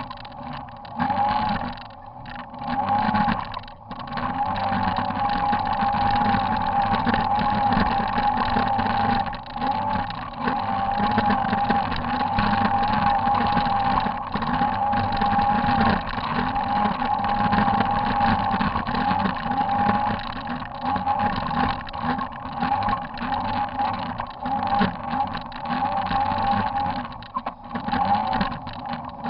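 Polaris RZR side-by-side's engine running under load on a hill climb, with a steady wavering whine over the engine note. The throttle comes in short surges for the first few seconds, then is held on steadily.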